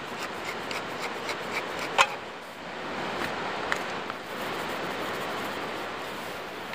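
Wooden pepper mill being twisted by hand over raw chicken, grinding in a quick run of small clicks, with one sharp knock about two seconds in.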